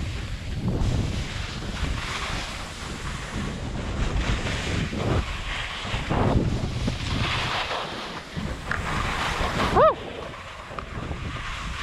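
Skis carving down soft spring corn snow, the edges scraping and hissing in swells with each turn, under heavy wind noise on the microphone. About ten seconds in, a brief high squeak rises and falls, the loudest sound.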